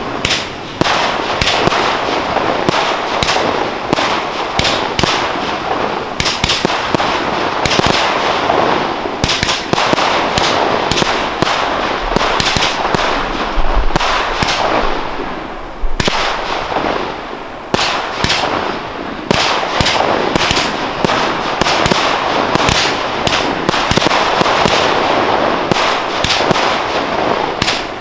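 Professional fireworks display: aerial shells launching and bursting in a dense, continuous barrage, many sharp bangs a second over a steady rushing noise. The barrage thins briefly about two-thirds of the way through.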